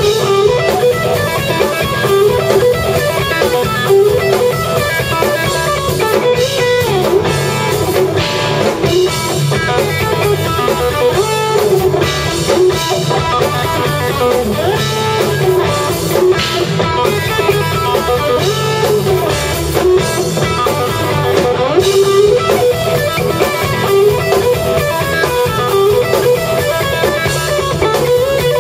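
Live instrumental rock played by a band: electric guitar, bass guitar and drum kit together, the guitar lines sliding in pitch over a steady beat.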